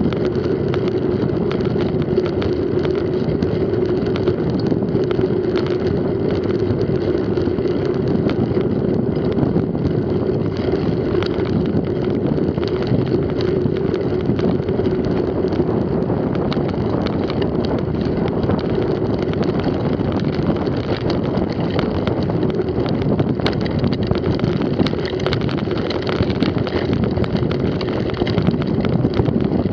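Mountain bike rolling fast over a bumpy dirt and grass track: a steady drone from the tyres with the bike rattling over the bumps, and wind buffeting the camera microphone.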